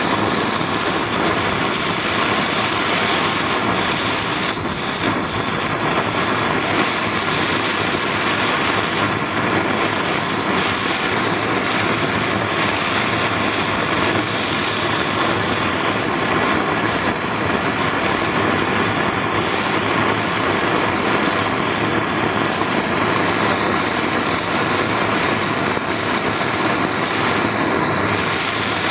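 Gas brazing torch burning with a steady rushing flame noise as it heats a copper capillary-tube joint.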